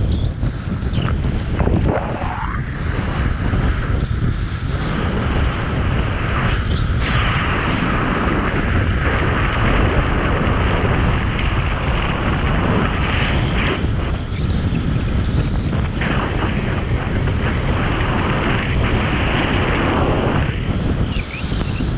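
Strong wind buffeting a kitesurfer's camera microphone in a steady loud rumble, with the rush of water under the board.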